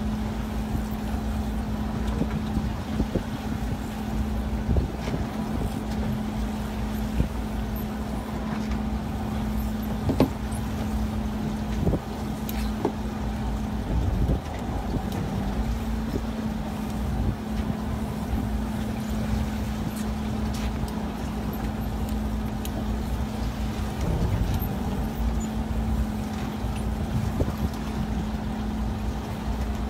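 A fishing boat's engine running steadily, a constant low hum over a rumble of wind and water, with a few brief knocks about ten to fourteen seconds in.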